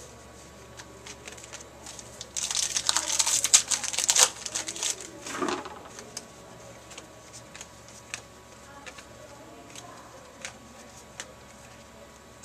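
Crinkling and rustling of a card pack wrapper being handled and torn open, loudest for a couple of seconds about two seconds in, then a brief rustle and scattered light clicks as trading cards are handled.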